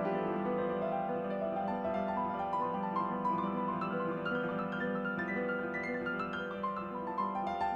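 Piano music: a melody of sustained notes over held lower notes.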